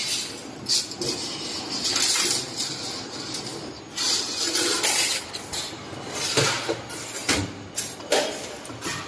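Automatic flat-wire bending and butt welding machine working, with repeated short bursts of hiss and metallic clinks.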